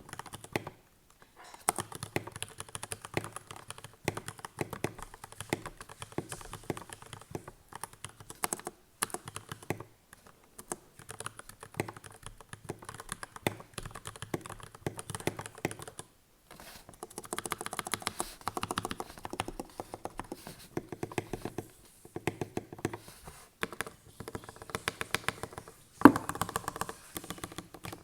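GK61X mechanical keyboard with lubed Gateron Milky Yellow linear switches, typed on quickly in runs of dense key clacks. The runs break off briefly a few times, and one key strike near the end is louder than the rest.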